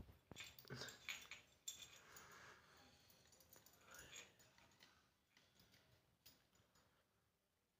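Faint clinking of a metal chandelier chain's links and rustling of a satin chain cover as it is worked along the chain by hand, in scattered short clicks that thin out toward the end.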